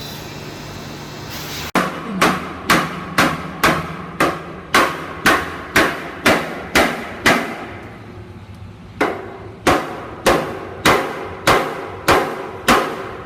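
Hammer blows on metal, about two a second, each with a short ringing tail: a metal frame being driven into a tight fit. There is a run of about a dozen blows, a brief pause, then seven more. A steady machine hum comes before the first blow.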